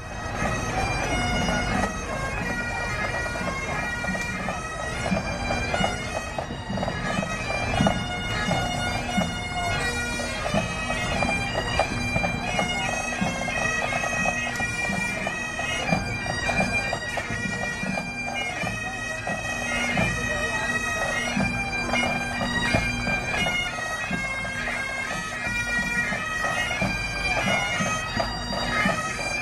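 Great Highland bagpipes of a marching pipe band playing a tune over their steady drones, with the band's drums beating along.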